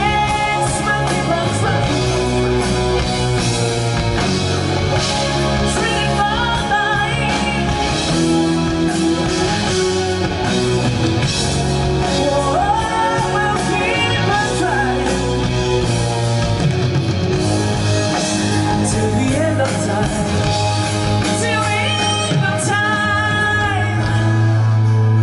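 Live rock band playing a song: a male lead vocalist singing into a microphone over electric and acoustic guitars, bass and drums, heard from the audience.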